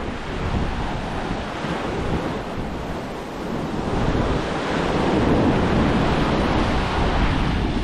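Surf washing onto a sandy beach, swelling louder a little past halfway, with wind buffeting the microphone.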